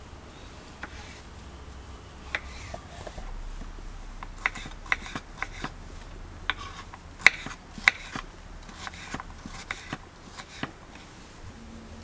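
Kitchen knife cutting a tomato and then dicing a red bell pepper, the blade knocking on a wooden cutting board in irregular sharp taps. The taps are thickest and loudest in the middle.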